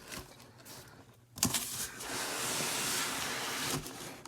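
Packaging scraping and rustling as the coffee maker is pulled out of its cardboard box: a sharp knock about a second and a half in, then a steady scraping noise for about two seconds.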